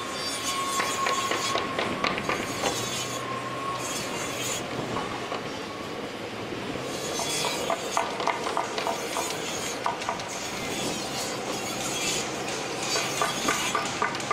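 Construction-site machinery noise: a high squeal holds for about three seconds near the start, and later come runs of rapid clicking and clanking over a steady rumble.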